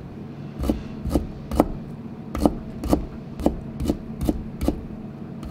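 Kitchen knife slicing carrot into fine julienne strips on a cutting board: evenly paced strokes, about two a second, each ending in a sharp knock of the blade on the board.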